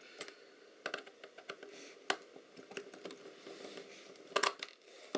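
A few small sharp clicks and taps from handling a film camera's small metal and plastic parts while it is being taken apart, with a closer group of clicks near the end.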